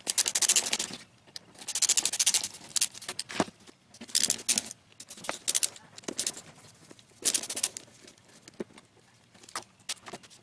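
Hand screwdriver undoing the screws of the aluminium gear housing on a Doliz BA730 angle grinder: about five bursts of rapid clicking, with a few single clicks near the end.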